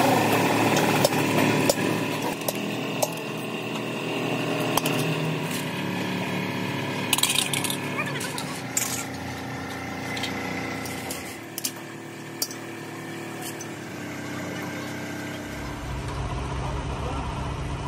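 Greasy tapered roller bearing being washed by hand in a metal bowl of dirty oil: scattered clinks of the steel cage and rollers against the bowl. A steady engine runs in the background, and a lower engine rumble comes in near the end.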